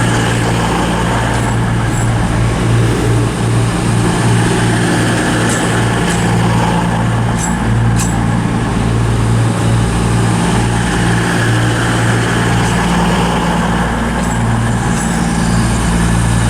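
CrossCountry Class 220 Voyager diesel multiple unit's underfloor diesel engines running at the platform: a steady, low engine drone that holds level throughout, with a few faint clicks near the middle.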